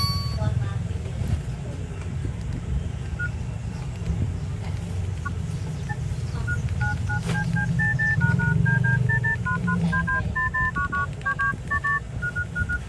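Nokia 108 keypad tones: a run of short dual-tone beeps as a number is keyed in, starting about three seconds in, over a steady low rumble.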